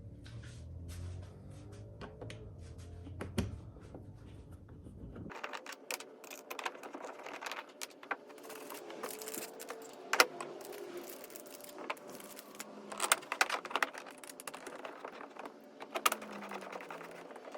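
Scattered light clicks and rattles of bolts and hand tools being handled while seat support brackets are bolted to a plastic kayak hull. A low background hum cuts off about five seconds in.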